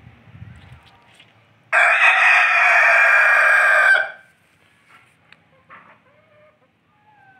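A rooster crows once, loud and close, for a little over two seconds starting a couple of seconds in. A few short, soft chicken calls follow.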